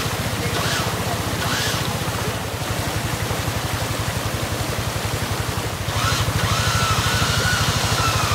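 Off-road vehicle's engine running steadily at idle with an even low pulse. A few short high chirps come in the first two seconds, and a thin high tone starts about six seconds in, holds, then slowly falls in pitch.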